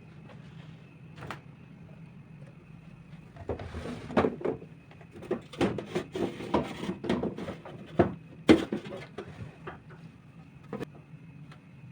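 Drawers and containers being handled: a run of knocks and clatter lasting about five seconds, with the two loudest knocks near the end of the run. Under it runs a steady low hum with a faint high tone.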